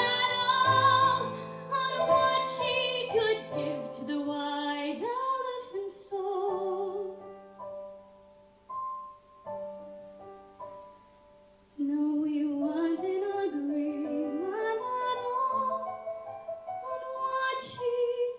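A woman singing a musical-theatre song with vibrato into a microphone, with piano accompaniment. The voice drops out for several seconds in the middle, leaving quiet held piano notes, and comes back in about twelve seconds in.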